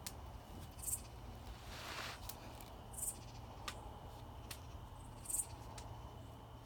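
Night insects chirping: a short, high, buzzy chirp about every two seconds, over a steady low hum and scattered sharp clicks and crackles.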